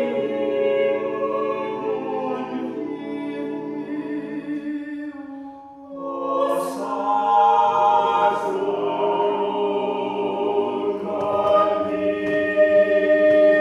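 Eight-voice a cappella choir of sopranos, altos, tenors and basses singing a Latin motet in sustained chords. The chord fades away about five seconds in. A fuller entry begins about six seconds in, with sharp 's' consonants.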